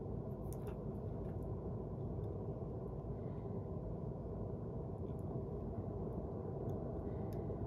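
Steady low background noise, a room-tone hum with a few faint soft ticks.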